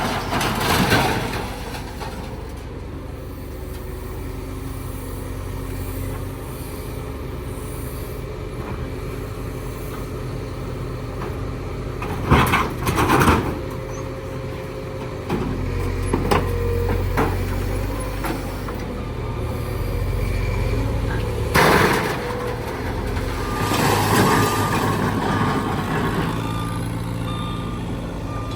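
A truck engine running steadily, with a few loud bangs, two close together about halfway through and another about twenty-two seconds in.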